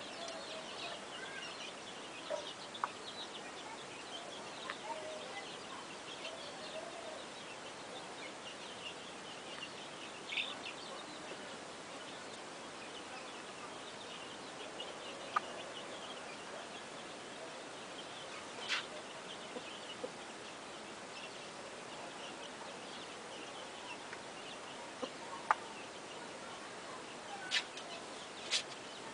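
A flock of chickens clucking and calling continuously, many birds at once, with several short sharp clicks scattered through.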